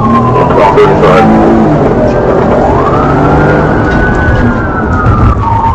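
Police car siren wailing in slow rising and falling sweeps, over a car engine accelerating hard.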